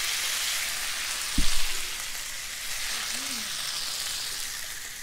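Fish fillets frying in a very hot pan: a steady high sizzle. A single low knock stands out about a second and a half in.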